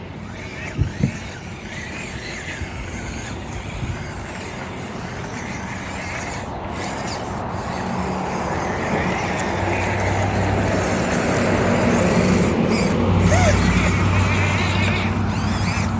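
Axial SCX24 micro RC crawler's small electric motor and gears whirring steadily as the Bronco crawls its line, growing louder over the second half.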